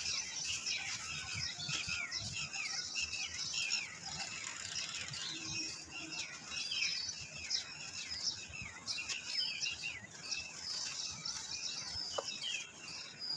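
Hands crushing and crumbling lumps of dry red dirt in a bucket, with soft crunching and thuds. Over it, small birds chirp steadily: many short falling chirps, several a second.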